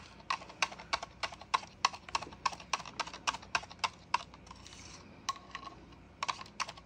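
A stirring stick knocking and scraping against the sides of a cup while mixing two-part polyurethane resin with glitter, about four clicks a second, with a short pause about four seconds in.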